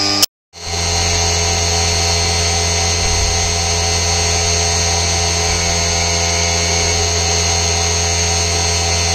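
CNC milling machine's spindle running at speed with a steady high whine, a small end mill cutting an aluminium engine case under coolant spray. It cuts out for a moment just after the start, then carries on unchanged.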